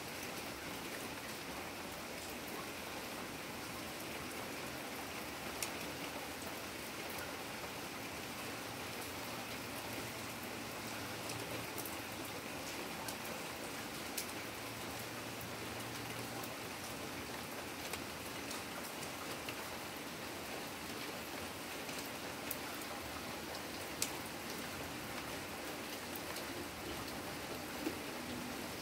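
Steady rainfall, an even hiss of rain, with a few sharp ticks standing out now and then.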